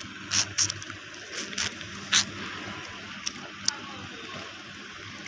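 Outdoor yard noise: a steady hiss with a faint low engine hum underneath, broken by several short, sharp ticks or crackles in the first four seconds.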